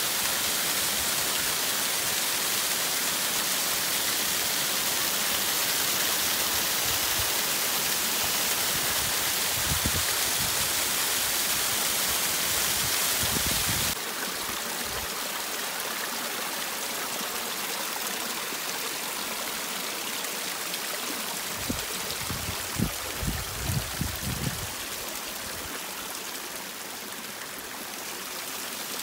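Small waterfall splashing in thin streams onto rock: a steady hiss of falling water. About halfway through it changes suddenly to a quieter, smaller trickle, with a few low bumps a little later.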